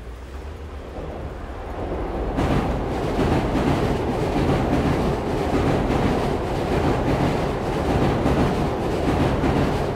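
Commuter train running over an elevated railway: a steady rumble and rattle of wheels on rails, fading in and building louder over the first two seconds or so, then holding steady with many quick clicks.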